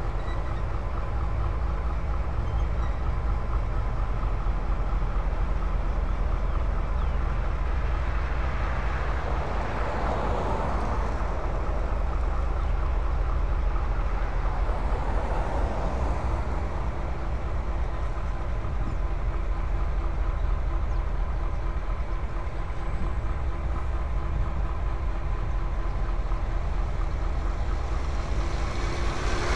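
Diesel-electric locomotive engines running with a steady low rumble. There are brief swells of broader noise about ten and sixteen seconds in.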